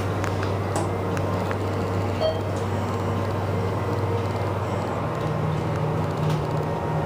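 ThyssenKrupp hydraulic elevator travelling up, heard from inside the cab: a steady low hum from the running pump motor, with a few light clicks. About five seconds in, a second, slightly higher hum joins it.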